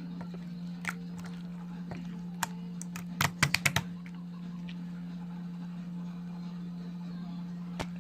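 Slime being pressed and squeezed by hand, giving sharp clicking pops: single clicks early on and near the end, and a quick run of about six louder clicks in the middle.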